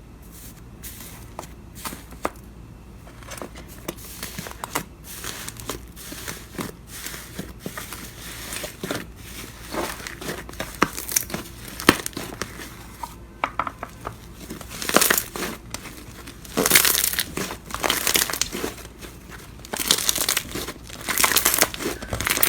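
Slime being handled and pressed by hand, giving sticky crackling and popping clicks that grow denser and louder in the second half.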